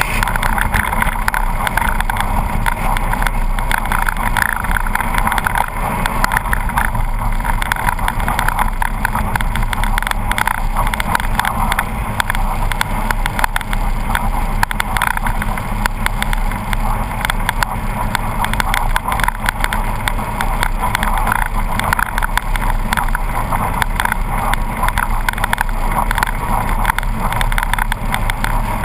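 Polaris RZR 800 side-by-side running steadily on a fast downhill run, heard from a camera on its hood. The engine and drivetrain make a constant drone under a dense clatter of small knocks from the rough track.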